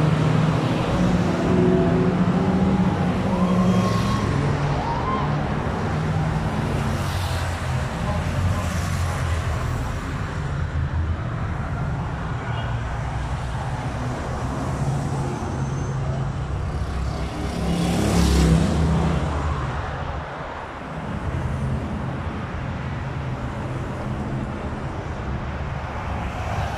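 A convoy of road-race cars and escort vehicles driving past one after another with their engines running. The loudest passes come at the start and again about two-thirds of the way through.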